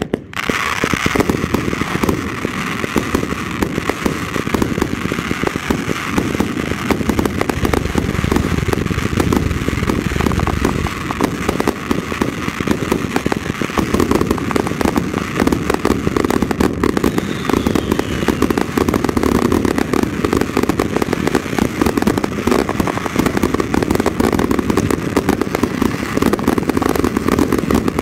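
Fireworks finale barrage of many cakes firing at once: a dense, continuous stream of rapid overlapping bangs and crackle with no pause.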